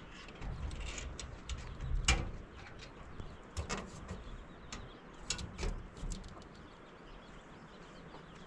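Clanks and knocks of a light sheet-metal door being handled and moved, several sharp knocks over the first six seconds, quieter after.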